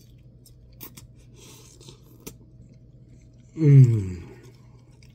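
A person chewing a mouthful of fries, with small wet clicks and crunches. About three and a half seconds in comes one loud closed-mouth "mmm" of enjoyment that falls in pitch.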